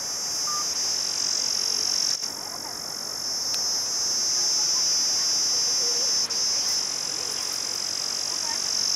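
Steady, high-pitched chorus of night insects such as crickets, trilling continuously.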